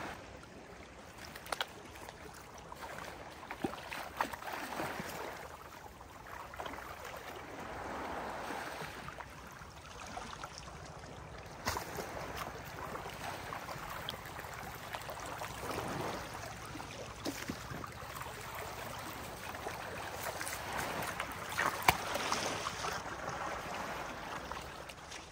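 Seawater washing in and out at the shoreline, swelling and fading every few seconds, with a few sharp knocks or clicks; the loudest knock comes near the end.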